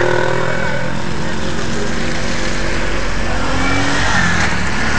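Road traffic passing close by: motorcycle and car engines running and revving, with voices in the background.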